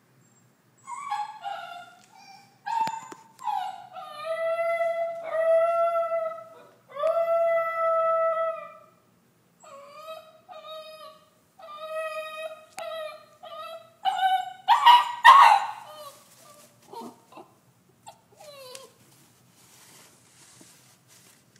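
Basenji puppy yodeling in her crate: a string of drawn-out, wavering calls, several held steady for a second or two. The loudest and harshest calls come about fifteen seconds in, then the calls thin out into short whimpers.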